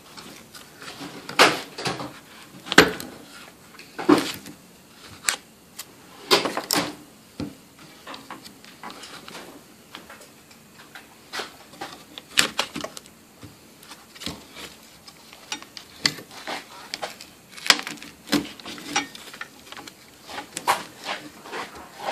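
Irregular sharp clicks and knocks of hard plastic as the tabs on a 2004 Nissan Frontier fuel pump module's plastic bracket are forced and punched down by hand.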